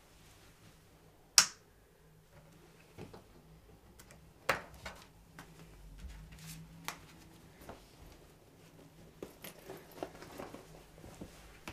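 Someone moving about a small room and handling things: one sharp click about a second in, then scattered light knocks and rustles, over a faint low hum.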